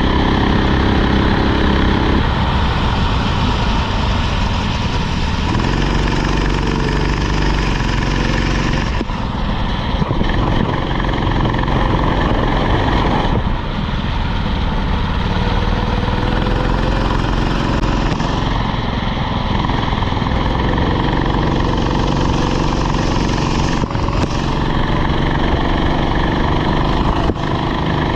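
Rental kart engine under way, its pitch climbing as it accelerates and dropping off several times as it slows, over a steady rush of noise.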